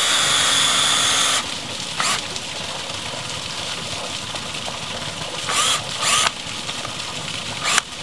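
A cordless drill drives screws into pressure-treated lumber. It runs steadily with a high whine that stops about a second and a half in, then gives four short bursts as the screw is snugged down.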